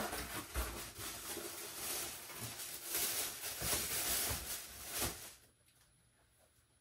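Paper and cardboard rustling as a pair of sneakers is unpacked from its shoe box, stopping suddenly about five seconds in, followed by a few faint handling ticks.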